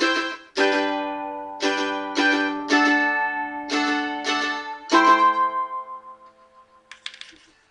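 Mandolin strumming chords, the song's outro: a last chord about five seconds in rings out and fades away. A brief noise follows near the end.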